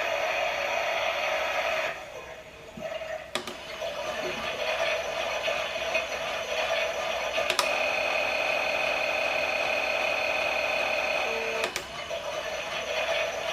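Klein Miele toy washing machine running with a steady whir that drops away briefly about two seconds in and then resumes. Three sharp clicks come at intervals of about four seconds.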